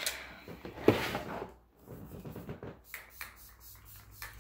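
Makeup setting spray misted from a pump bottle onto the face: a few short hissing sprays, the loudest about a second in.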